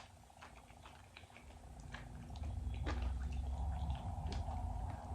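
Crunchy chewing of Doritos nacho chips, heard as scattered sharp clicks, over a steady low hum that grows louder about two seconds in.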